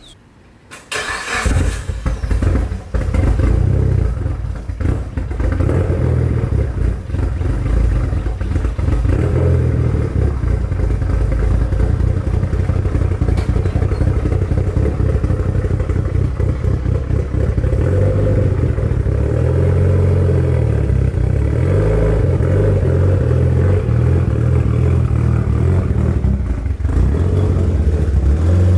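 Mitsubishi Lancer Evolution VIII's turbocharged four-cylinder engine started about a second in, then running at low speed as the car is backed up and pulled in.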